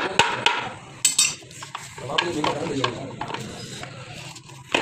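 Wire brush scrubbing the dirty casing of a Toyota HiAce manual gearbox, a rough scratching in quick, irregular strokes.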